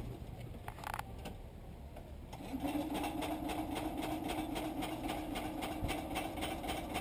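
BMW Isetta 300's small single-cylinder engine starting about two and a half seconds in, then running at a steady idle with a quick, even ticking beat.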